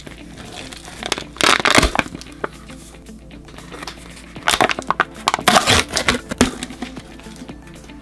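Crunchy snack crunching in two loud bursts, a short one about a second in and a longer one about halfway through, over steady background music.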